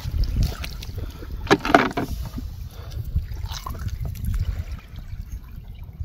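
Wind rumbling on the microphone, with wet squelching and crackling from steps and hands working in shell-strewn tidal mud; the loudest squelch comes about a second and a half in.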